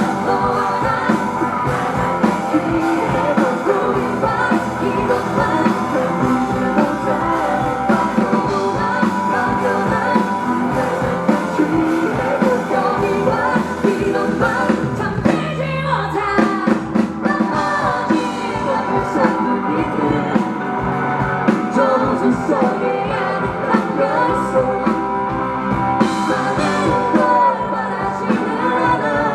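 Live rock band playing with a lead vocalist singing over electric guitar, bass, drums and keyboard.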